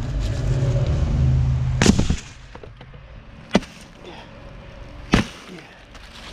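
An engine running steadily that drops away about two seconds in, with three loud sharp knocks, the first just before the drop and the others about a second and a half apart.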